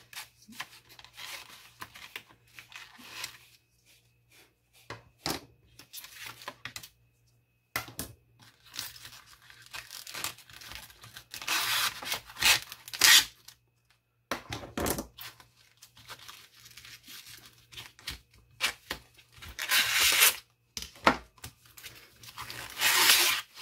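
Knives in plastic sheaths being pulled out of a cardboard packaging insert: cardboard and plastic scraping and rustling in short irregular spells, loudest around halfway and twice near the end.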